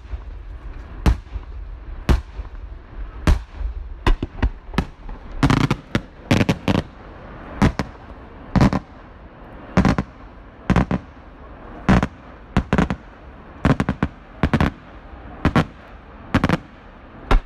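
Aerial firework shells bursting overhead: a run of sharp bangs, about one to two a second, some coming in quick clusters.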